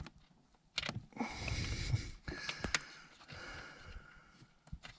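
A few light metallic clicks and scrapes as a nut is worked by fingertips onto a brake booster mounting stud, with a man's effortful breathing through the nose.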